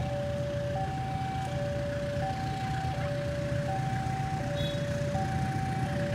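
Railway level-crossing warning alarm sounding: two electronic tones alternating high and low, each held about three-quarters of a second, over a low steady rumble.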